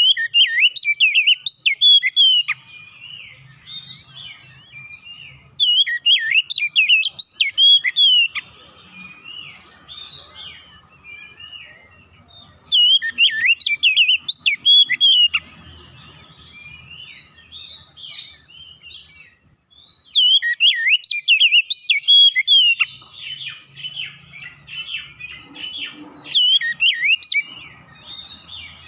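Caged Oriental magpie-robin (kacer) in full song: loud bursts of varied, rapid whistled phrases, each two to three seconds long, coming about every six to seven seconds, with softer chattering notes in between.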